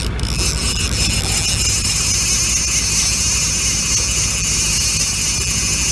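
A boat's motor running steadily with a low, even throb under a constant hiss.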